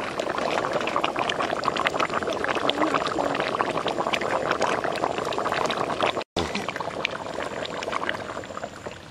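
Curry boiling hard in a pot, a dense, steady bubbling and popping, with a brief break just after six seconds and slightly quieter near the end.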